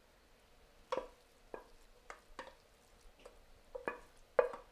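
A utensil stirring cooked orzo pasta with asparagus in a pan, giving about eight light, irregular knocks and scrapes against the pan.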